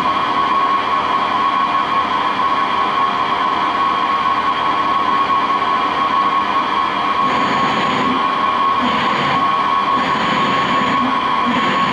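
Bridgeport EZ Path SD lathe running under power, a steady machine whine with a hiss. About seven seconds in, a higher whine with added rushing noise starts and stops several times over the steady run.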